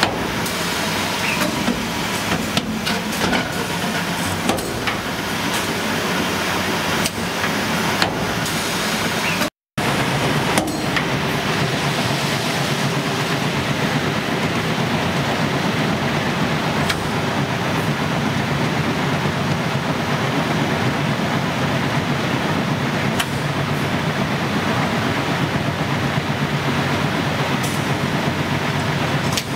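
Posimatic EV5000 twin-head liquid filling machine running, with its conveyor and suction filling nozzles making a steady mechanical noise. Occasional sharp clicks come in the first ten seconds, and the sound drops out briefly about ten seconds in.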